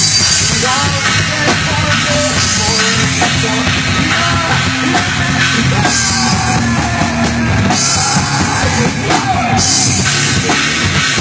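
A live rock band playing loudly at full tilt: a pounding drum kit, guitars, and a singer shouting the vocal line.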